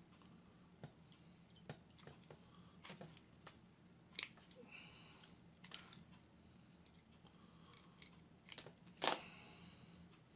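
Light metal clicks and taps of pliers handling thin wire and small metal parts, scattered irregularly, with one louder knock about nine seconds in.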